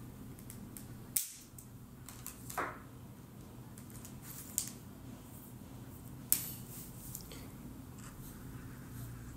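Markers being handled: four short, sharp clicks and taps, the loudest about six seconds in, over a low steady hum.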